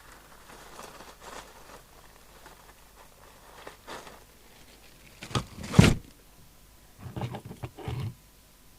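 Bench handling noise: a few faint clicks, then two sharp knocks just before six seconds in, the second the loudest, and a short run of dull thuds about seven to eight seconds in.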